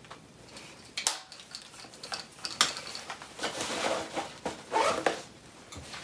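Handling noise: a few light clicks and knocks mixed with the rustle of clothing and a chest harness, as a compass on a lanyard is lowered and a hand reaches onto a table.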